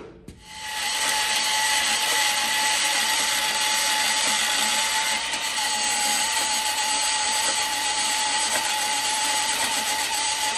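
Portable band saw cutting through the welded steel brackets on a drop axle's I-beam. It starts about half a second in and runs steadily under load, with a steady whine over the rasp of the blade.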